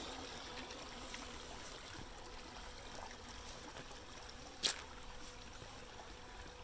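Shallow creek water splashing and trickling around the wheels of a 1/10 scale WPL D-42 RC van as it drives slowly through it. A single sharp click about four and a half seconds in stands out above the steady water noise.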